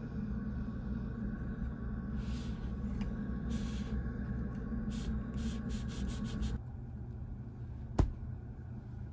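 Steady hum and rush of air from an adjustable ceiling air-conditioning vent, with a few short hisses while it is being turned. The hum drops away about two-thirds of the way through, and a single sharp click comes near the end.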